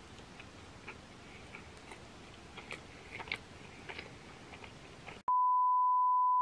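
Faint, close-miked wet chewing with small mouth clicks of someone eating tandoori chicken. About five seconds in, this cuts off and a steady, much louder test tone begins, the beep that goes with television colour bars.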